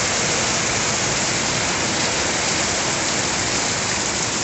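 Heavy rain pouring down steadily, a dense even hiss of rain on surfaces.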